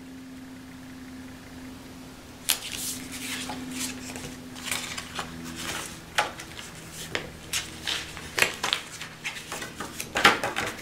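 Scrapbook cardstock being handled on a cutting mat: paper rustling, sliding and tapping in quick, irregular sounds, starting about two and a half seconds in.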